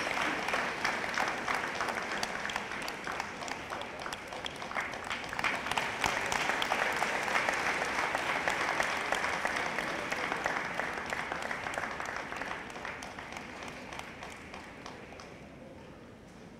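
Audience applauding, a dense patter of many hands clapping. It swells about halfway through, then dies away toward the end.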